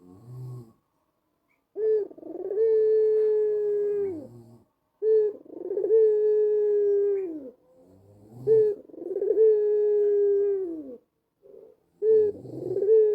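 White ringneck dove (puter putih) cooing its long song call four times, the fourth cut off at the end. Each call is a short opening note, then a long steady coo that falls in pitch as it ends.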